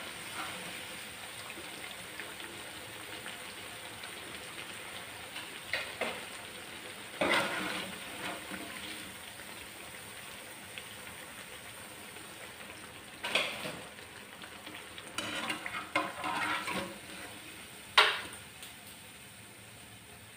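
Cabbage pakoras deep-frying in hot oil with a steady sizzle that gradually quietens, while a wire-mesh skimmer scrapes and clatters against the pan several times as the fritters are turned and lifted out. A single sharp knock near the end is the loudest sound.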